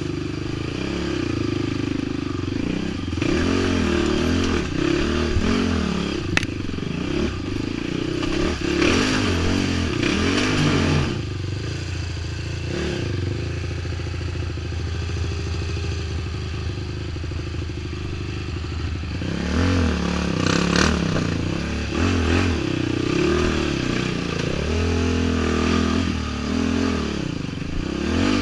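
ATV engine revving up and down in repeated surges as the quad is worked over rocks. It runs steadier for several seconds in the middle, and there is a sharp knock about six seconds in.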